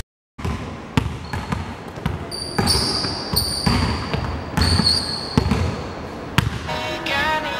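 Basketball being dribbled on a hardwood gym floor, the bounces echoing, with sneakers squeaking sharply on the floor a couple of times in the middle.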